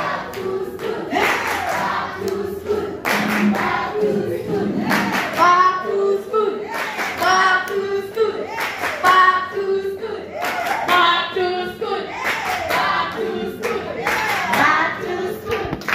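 Several people singing together, with hand-clapping throughout.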